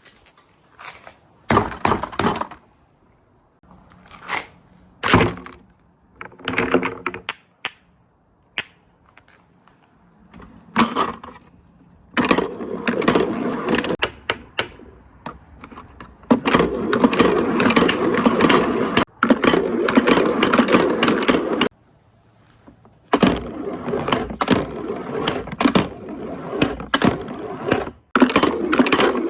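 Marbles rolling and clattering down a marble run: scattered separate clacks and knocks at first, then, from about twelve seconds in, long spells of continuous rattling roll broken by short gaps.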